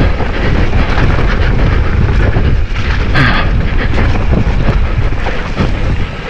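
Mountain bike riding fast down a dirt woodland trail: heavy wind buffeting the handlebar camera's microphone over the rumble of the tyres and the rattle of the bike on roots and ruts, with a brief hiss a little past the middle.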